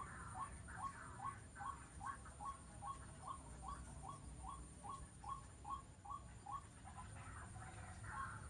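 A bird calling: one short squeaky note repeated steadily about two and a half times a second for several seconds, a pause, then the notes start again near the end.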